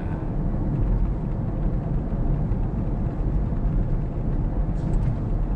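Steady low rumble of road and tyre noise inside a moving Toyota Prius cabin, with a faint brief tick about five seconds in; the owner is hunting a clicking or jingling rattle that seems to come from low down inside the car.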